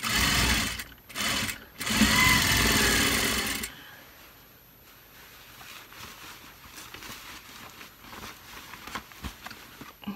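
Juki sewing machine stitching a shirt's sleeve seam in three runs, the last and longest about a second and a half, the motor speeding up at its start. It then stops, and the cloth is rustled and handled quietly.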